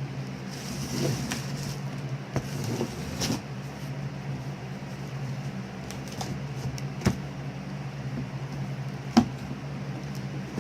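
Cardboard bike box being opened by hand: rustling for the first few seconds, then scattered knocks and taps, over a steady low hum.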